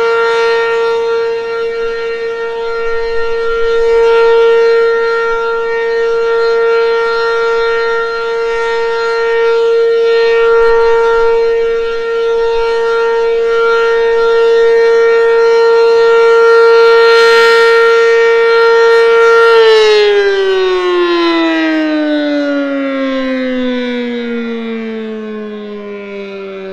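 ACA Banshee 8-port outdoor warning siren sounding its steady full-alert tone, loudness swelling and fading every six seconds or so. About twenty seconds in, the tone ends and the siren winds down, its pitch falling steadily.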